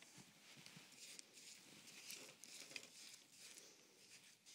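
Near silence with faint, scattered scrapes and light taps: a spatula scraping creamed butter-and-sugar batter down the sides of a glass mixing bowl.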